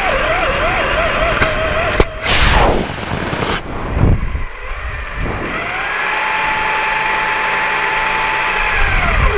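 Onboard sound of a 1:10 HobbyKing Desert Fox RC car. Its electric motor whines, wavering, as it drives over gravel. About two seconds in, a sharp crack is followed by a loud roar of about a second from the strap-on solid rocket firing. The car is then airborne and the motor whines steadily with the wheels spinning free, over a rushing noise, and the whine drops away near the end.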